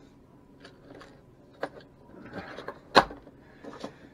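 Small clear plastic tackle boxes being handled on a wooden table: scattered clicks and rattles, with one sharp knock about three seconds in.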